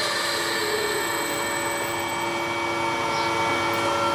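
Electric fan motor running fast on a variable frequency drive set to 74 Hz: a steady rush of air with a motor whine of several steady tones.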